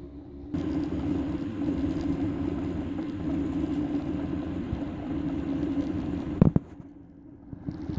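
Homemade wooden 3D printer running a print: its stepper motors and the print head's cooling fan give a steady mechanical hum with a buzzing tone. A single sharp thump comes near the end, followed by about a second that is quieter before the hum returns.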